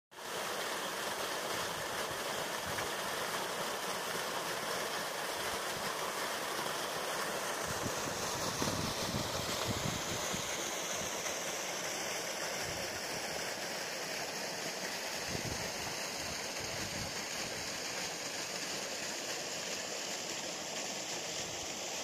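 Small waterfall spilling over icy rocks, a steady rush of water, with brief low rumbles about eight and again about fifteen seconds in.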